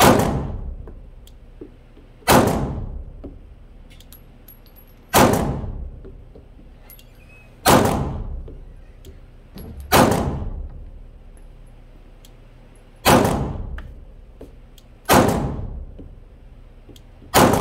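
Glock 17 9mm pistol fired eight times in slow, aimed fire, a shot every two to three seconds, each report followed by a short echo off the walls of the indoor range.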